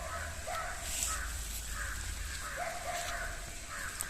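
Crows cawing: two drawn-out calls, one about half a second in and another a bit past two and a half seconds, with a few shorter caws between.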